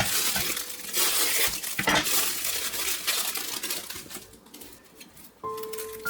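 Kitchen work noise: a continuous hiss with a few sharp clinks of kitchenware, fading out about four seconds in. Background music notes come in near the end.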